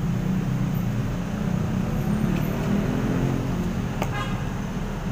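A steady low mechanical hum, like an engine or motor running, with a single short click about four seconds in.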